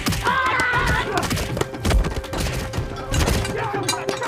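Battle sound effects: a horse whinnies in the first second, then repeated thuds and clashes of fighting, over background music with a held note.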